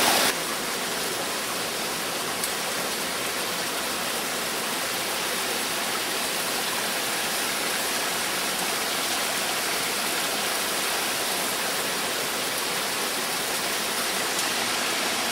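Mountain stream rushing steadily over rocks, a continuous even water noise.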